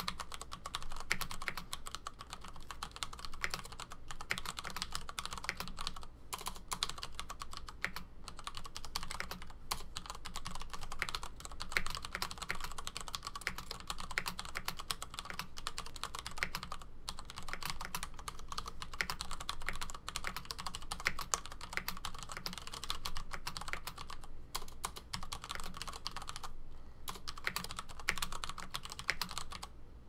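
Continuous typing on a Das Keyboard 4 mechanical keyboard with Cherry MX Brown switches and stock ABS keycaps: a dense stream of keystroke clicks and clacks, broken by a few short pauses.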